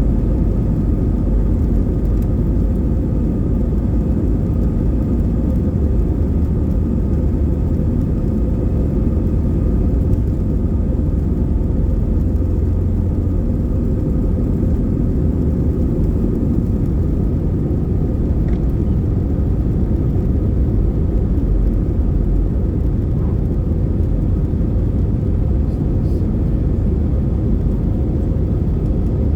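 Steady cabin noise inside an Airbus A320-214: an even, low rumble of the CFM56 engines and airflow, with a faint steady hum above it.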